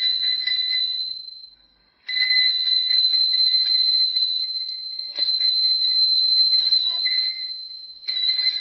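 Bicycle bell rung rapidly in a continuous trill, in long bursts of a few seconds each with short breaks. The first burst dies away after about a second and a half, and a new burst starts near the end.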